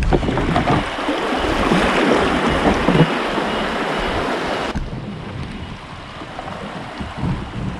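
River water rushing and splashing around a kayak, with wind buffeting the microphone. A little under five seconds in, the bright hiss of the water drops away abruptly, leaving lower, uneven rumbling.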